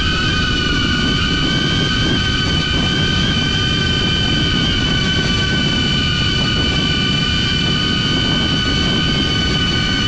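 DJI Avata FPV drone with Axis C175 motors in flight, its motors and propellers giving a loud, steady high whine that holds almost the same pitch, over a low rumble of wind.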